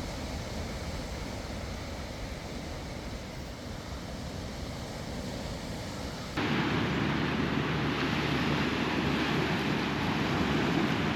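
Steady wind and sea-surf noise on a beach, with wind on the microphone. About six seconds in it suddenly becomes louder and fuller.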